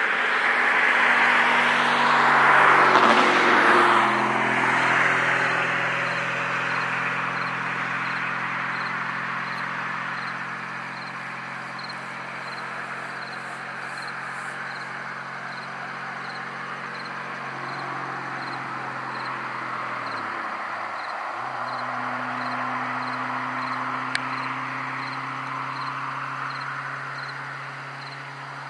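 A passing car's noise swells to a peak about three seconds in and fades away slowly, over a steady low engine hum. Crickets chirp faintly throughout.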